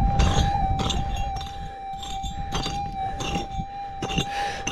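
Minelab GPZ 7000 gold detector's steady threshold tone, wavering slightly, over irregular scraping crunches of digging into gravel and quartz.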